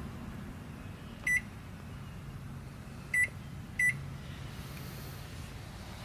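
Microwave oven keypad beeping as buttons are pressed to set it: a short high beep about a second in, then two more close together near the three-to-four second mark, over a steady low hum.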